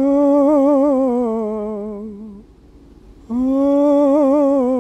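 An unaccompanied voice holds two long wordless notes with a wavering vibrato, the second starting a little past halfway. Each note sinks slightly in pitch as it fades.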